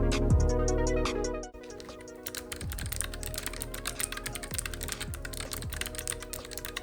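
Fast typing on a NuPhy Air75 low-profile mechanical keyboard fitted with nSA shine-through keycaps: a dense run of key clicks starting about two seconds in. Electronic music plays underneath, louder for the first second and a half.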